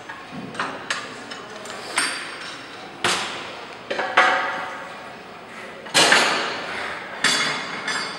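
Gym weights clanking: about nine sharp metal clanks at uneven intervals of one to two seconds, each with a short ring after it.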